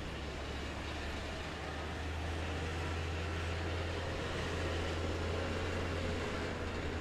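Tanks and other tracked armoured vehicles running on the track, heard as a steady deep engine drone. A fainter whine swells and fades in the middle.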